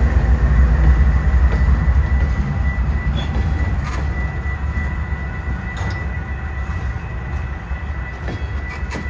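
Covered hopper cars of a grain freight train rolling past: a deep, steady rumble of wheels on rail with a few clicks over rail joints and a thin steady high tone above it. The rumble eases slightly toward the end.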